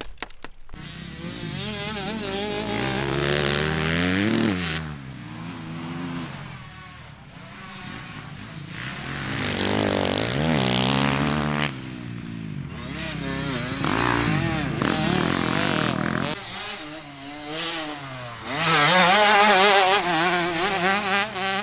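Dirt bike engines revving on a motocross track, the pitch climbing and dropping as the bikes accelerate, shift and pass one after another. The loudest pass comes near the end.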